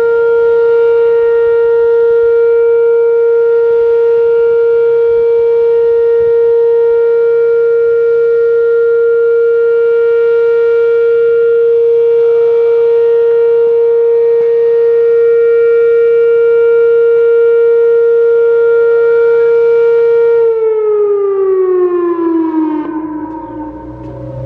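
Whelen WPS-2809 electronic outdoor warning siren sounding its steady alert tone: one loud held pitch with overtones. About twenty seconds in, the tone winds down, gliding lower in pitch and fading.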